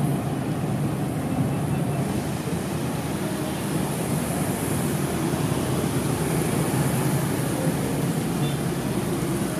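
Steady city traffic on a rain-soaked street: car, bus and motorbike engines running, with a constant hiss of rain and wet tyres over them.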